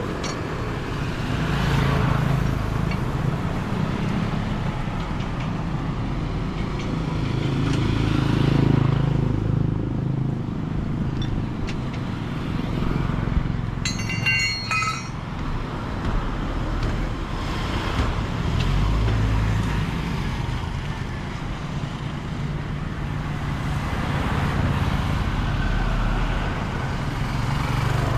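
Roadside traffic with motor scooters and other vehicles passing, their engines swelling and fading again several times over a steady low hum. A short high-pitched chirping sound comes about halfway through.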